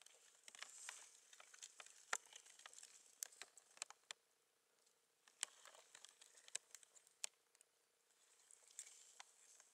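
Faint rustling with irregular sharp clicks and ticks, the sound of a handheld camera being moved and handled close to moss and grass. The clicks come thickest in the first four seconds, thin out in the middle and pick up again near the end.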